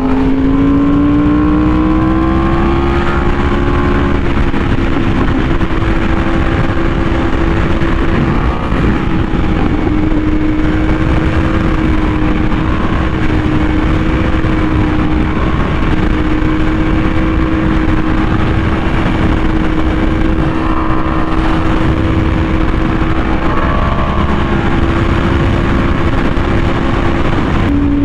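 Yamaha R1M's crossplane inline-four through an SC Project exhaust, pulling hard with its pitch climbing over the first few seconds. It then holds a steady high-rpm drone at speed, with a constant rush of wind noise.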